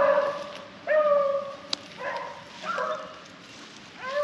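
Hunting beagles baying: about five long, drawn-out bays roughly a second apart, the pack running a rabbit's scent trail.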